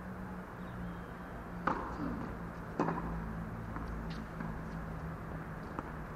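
Tennis ball being hit by rackets and bouncing on a hard court during a point: a few sharp pops, the two loudest a little over a second apart in the first half, fainter ones later. A steady low hum runs underneath.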